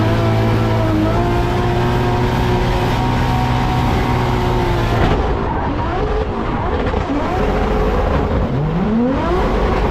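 Toyota GT86's flat-four boxer engine running at steady revs, then, after an abrupt change about five seconds in, revving with a rising pitch near the end.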